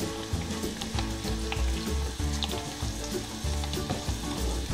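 Spices and curry leaves frying in hot oil in a pan: a light, steady sizzle with scattered small crackles, as the masala is roasted.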